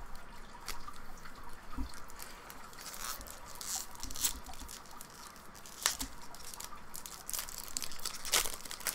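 Foil booster-pack wrapper crinkling and tearing as it is handled and opened, with trading cards shuffled. Irregular sharp crackles come every second or two, the loudest about six seconds in and near the end.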